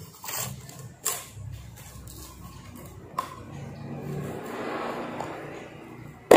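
Plastic bowl and lid of a Cosmos CB-802 chopper attachment being handled and twisted open: light clicks and rubbing, then a sharp snap near the end. The lid is a tight fit.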